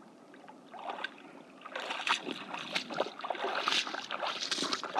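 Crackling, rustling handling noise close to the microphone, made of many irregular clicks and scrapes, starting about a second in.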